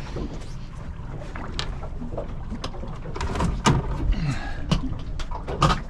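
Boat's outboard motor idling with a steady low rumble, with scattered short knocks and clicks over it.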